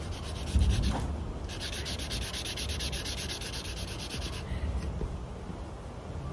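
A marker scribbling on a coloring-book page in fast, even back-and-forth strokes, at about eight a second. It pauses about a second in, resumes, and stops about four and a half seconds in. A low rumble sounds about half a second in.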